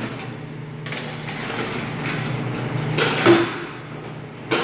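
Stainless steel table panel of a band saw being slid and lifted into place, with a loud metal scrape and clatter about three seconds in and a sharp knock near the end, over a steady low hum.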